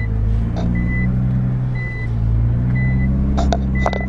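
Nissan GT-R R35's twin-turbo V6 idling, heard from inside the cabin, while a warning chime beeps about once a second. A couple of sharp clicks sound near the end.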